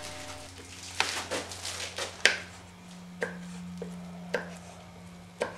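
Scattered light taps and clicks of gloved hands handling a resin-wetted fiberglass patch, a foam block and resin pots on a work table, about eight in all, the sharpest a little over two seconds in, over a faint steady hum.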